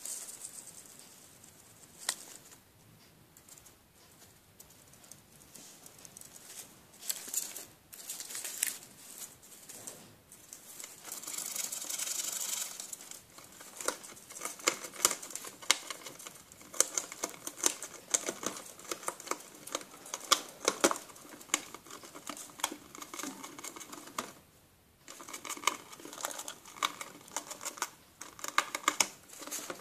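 Gerbil gnawing and tearing at the edge of a cardboard box: quick runs of crisp crunching clicks, sparse at first and busiest in the second half, with a short pause near the end.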